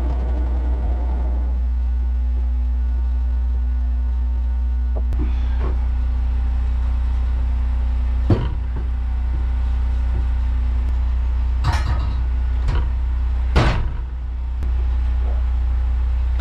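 Wood-Mizer LT15 Wide band sawmill's engine running steadily. The sawing noise dies away about a second and a half in, and later there are a few sharp wooden knocks as cut lumber is shifted on the mill bed, the loudest about eight and thirteen and a half seconds in.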